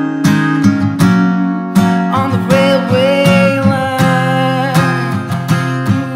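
Acoustic guitar strummed in a steady rhythm. About two seconds in, a long wordless sung note enters, sliding up into pitch and then held.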